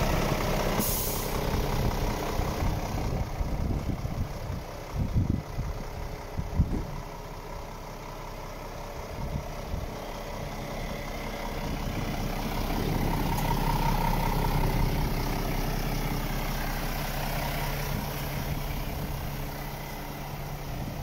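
Scania R450 truck's 13-litre straight-six diesel idling steadily. A few low thumps come about five to seven seconds in.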